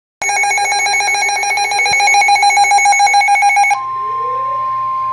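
NOAA Weather Radio alert tones opening a new warning: a buzzing, rapidly warbling burst of digital header tones for about three and a half seconds, then the steady, high-pitched warning alarm tone starts.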